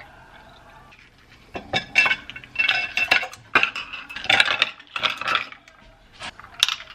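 Milk pouring into a glass mason jar, then a straw stirring iced coffee, with ice cubes clinking rapidly against the glass, about three clinks a second, and one last clink near the end.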